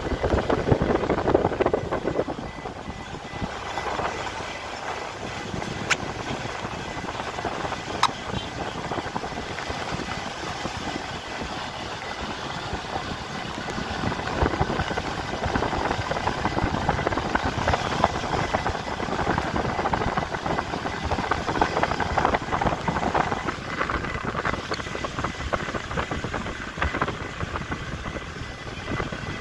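Vehicle driving along a road: steady engine and road noise.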